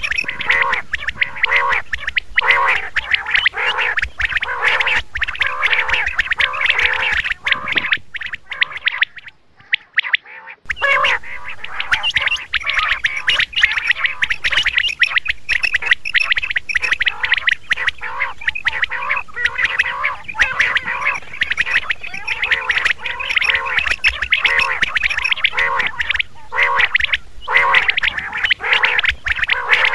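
Quail calling in quick, closely repeated notes that run on without pause, except for a break of about two seconds some nine seconds in.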